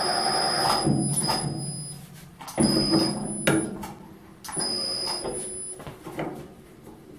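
Uzor-N1 cold-forging machine's drive turning the snail die in three runs, winding a steel bar into a scroll. A steady high whine over a lower mechanical rumble stops about two seconds in, then comes back twice for about a second each, with a few knocks between the runs.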